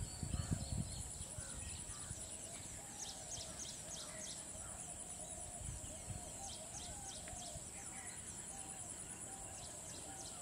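Rural wildlife ambience: a steady high insect buzz, with a bird repeating quick downward-slurred chirps through the middle and a low wavering, warbling call running underneath.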